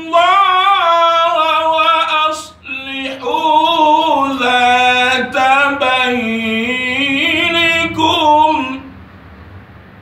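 A man's voice chanting the Quran in the melodic recitation style, drawing out long ornamented notes that waver up and down, with a short breath near two and a half seconds in. The voice stops about nine seconds in.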